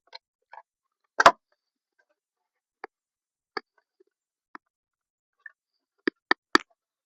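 Scattered sharp knocks and clicks of hand work on an old radio speaker being taken apart: one loud knock about a second in, a few faint ticks, then three quick knocks near the end.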